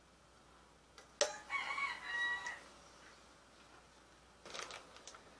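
A rooster crowing once, starting about a second in and lasting about a second and a half. Near the end come a few light knocks.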